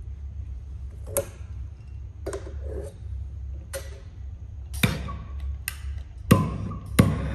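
Sharp clicks as copper pipe and a gas blowtorch are handled, the loudest three in the second half from the blowtorch's push-button igniter being worked to light it for annealing the pipe.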